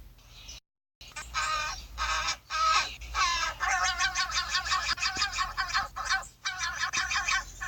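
A pet bird giving a long run of harsh, rapidly repeated squawking calls, several a second, starting about a second in.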